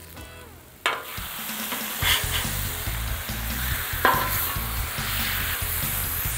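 Smashed beef patties sizzling on the hot steel top of a Cuisinart 360 gas griddle as a metal spatula scrapes under them to flip them. The sizzle jumps up suddenly about a second in and stays loud, with a couple of short spatula scrapes along the way.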